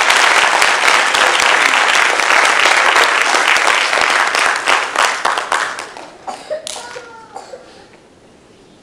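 Theatre audience applauding, a dense patter of many hands that dies away about six seconds in. A few brief high calls with rising and falling pitch follow near the end.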